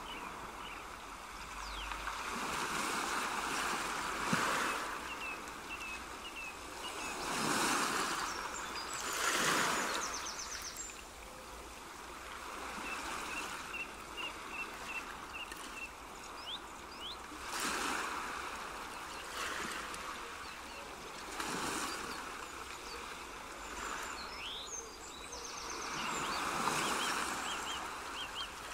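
Background water ambience: a rushing, washing hiss that swells and fades every few seconds, with short, high chirps scattered through it.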